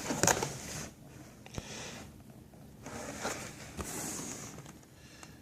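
Rustling and scraping of things being handled, in several short swishes that fade toward the end.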